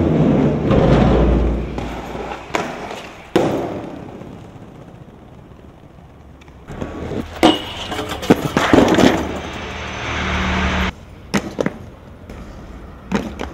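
Aggressive inline skates rolling over paving and concrete, with several sharp clacks of skates striking ledges and the ground.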